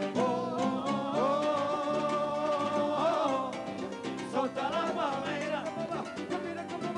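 Live band playing a Latin rumba-style song: a male voice sings, holding one long note about a second in, over guitar chords and busy percussion.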